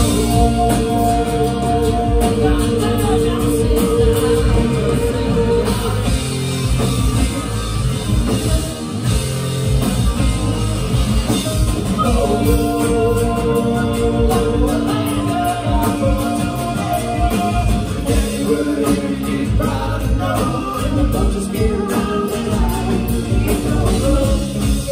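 Live band playing a song that mixes thrash metal and bluegrass: acoustic and electric guitars over a driving drum beat, with sung vocals holding long notes.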